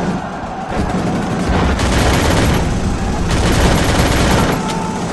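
Battle sound effects of rapid gunfire with machine-gun fire, dense and continuous, growing louder about two seconds in and again past three seconds.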